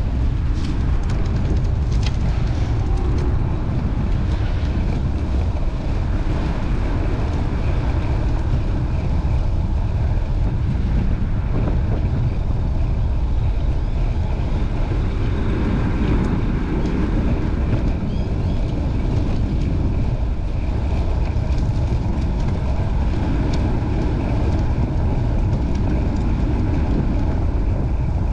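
Wind buffeting the microphone: a steady low rumble with a rushing hiss above it, and a few faint ticks in the first few seconds.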